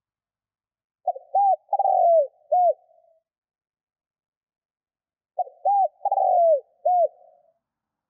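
Spotted dove cooing: two identical phrases about four seconds apart, each a few short coos around one longer falling note.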